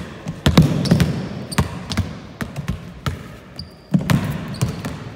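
Basketball dribbled on a hardwood gym floor, a quick run of bounces about two to three a second, with a few short high sneaker squeaks in the second half.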